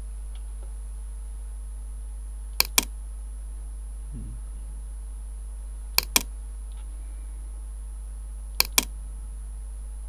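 Three computer mouse double-clicks, one pair about every three seconds, over a steady low hum.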